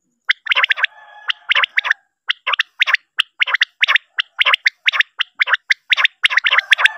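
Common quail calling: short, sharp notes repeated rapidly, about three or four a second in small groups, with a fainter held two-tone note behind them about a second in. This is a recorded quail call used as a lure for netting or hunting quail.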